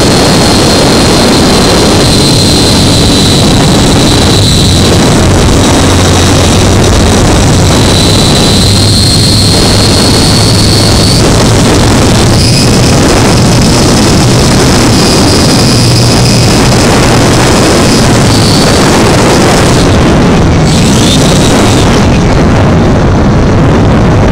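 Electric motor and propeller of an RC model airplane in flight, heard from a camera mounted on the plane: a thin high motor whine whose pitch shifts up and down with the throttle, under heavy wind and vibration noise on the microphone.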